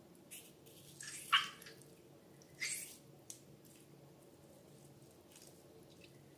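Slime being handled, giving a few short wet squelches and drips. The loudest comes about a second and a half in, with another just under three seconds in and fainter ones between.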